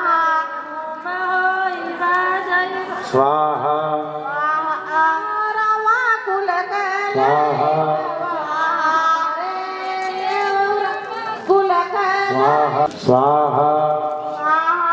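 A woman singing a devotional song in melodic phrases with long held, bending notes. A low steady tone sounds under some of the phrases.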